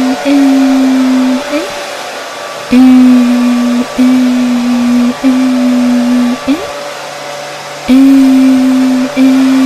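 Hair dryer running steadily, overlaid by a mother's voice holding a long 'eee' on one steady pitch in a string of drawn-out notes. The voice breaks off twice, about two seconds in and about seven seconds in, leaving only the dryer's noise. This is white noise with a soothing voice for calming a colicky baby.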